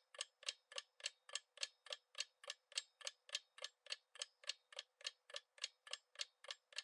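Clock-ticking countdown sound effect: a steady, even tick about three and a half times a second as a quiz answer timer runs down.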